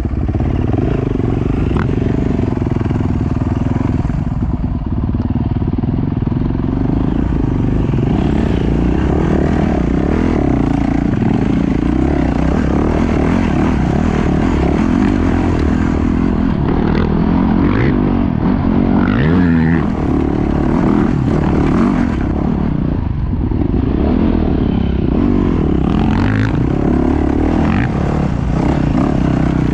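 Enduro dirt bike engine running under load, heard from on board the bike, its pitch rising and falling as the throttle is worked, with a short rising rev about two thirds of the way through.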